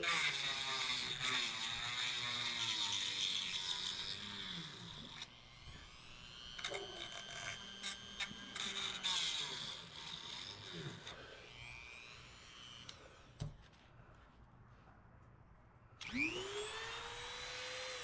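Small handheld power tool running in short spells, its whine rising and falling with speed and load, then a quick spin-up near the end. One sharp click in a quieter stretch.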